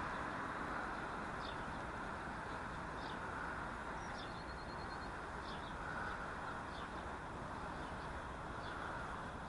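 Steady hum of distant city traffic, with small birds calling in short high chirps about once a second and a brief fast trill about four seconds in.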